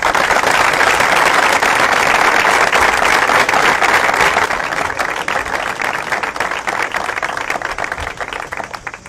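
A group of people applauding: dense clapping that thins out over the second half and dies away near the end.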